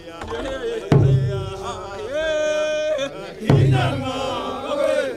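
A group of voices chanting a traditional Nandi song, with one long held note in the middle. A deep drum is struck twice, about a second in and again past three seconds, keeping a slow beat.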